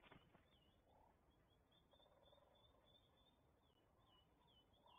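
Very faint: an osprey's wingbeats as it lifts off the nest at the start, then distant small birds chirping, repeated thin wavy notes from about a second in onward.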